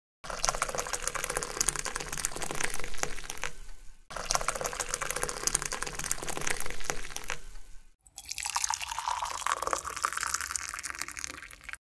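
Chocolate milkshake poured from a steel jug into a glass tumbler: a splashing, trickling stream of liquid. There are three separate pours, and each is cut off suddenly.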